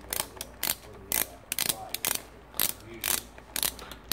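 Socket ratchet loosening a 10 mm nut on the intake manifold of a GY6 157QMJ scooter engine, its pawl clicking in short runs of several clicks a second.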